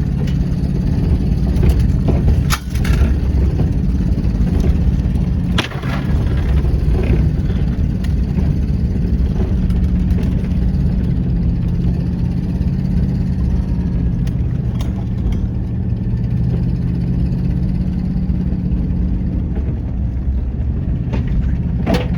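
A vehicle's engine and road noise, steady, heard while driving, with two brief knocks, one a few seconds in and another a few seconds later.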